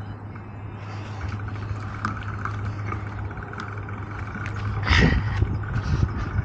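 Steady rumble of wind and rolling noise from a moving bicycle, with one louder bump about five seconds in.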